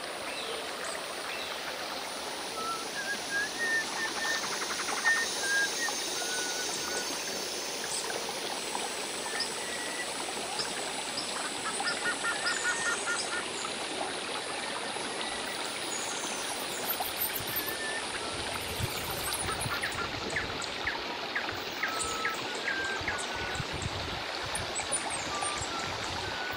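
Shallow rocky stream running steadily over stones, with small birds chirping in short calls over the water noise.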